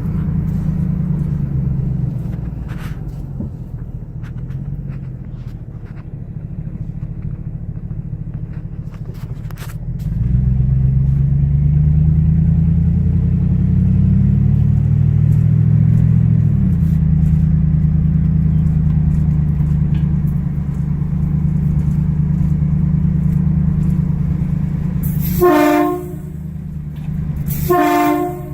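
A car driving, its engine and road noise a steady low rumble that gets louder about ten seconds in. Near the end a train horn sounds two short blasts.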